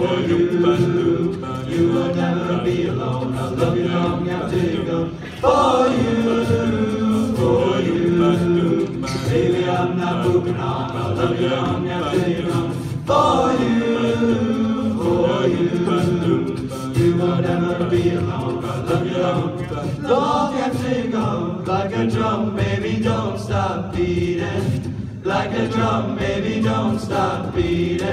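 All-male a cappella group singing in close harmony into handheld microphones, amplified through a PA, with held chords that shift every second or two and new phrases swelling in every several seconds.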